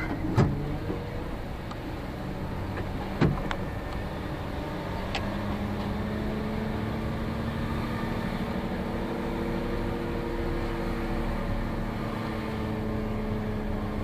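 Diesel engine of a concrete mixer truck running under light load as the truck rolls slowly, heard from inside the cab, its hum rising a little in pitch partway through. Two sharp knocks stand out, about half a second in and about three seconds in.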